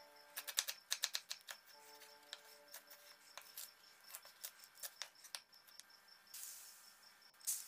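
Kitchen knife chopping shallots and spring onions on a bamboo cutting board: quick, irregular knocks of the blade on the wood, over soft background music. A short hiss and one louder knock come near the end.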